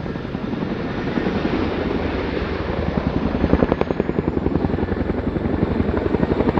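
Boeing Chinook HC.6 tandem-rotor helicopter flying a display. The rotors make a fast, even beat that grows louder and more pronounced from about halfway through, the blade slap typical of the Chinook in hard manoeuvres.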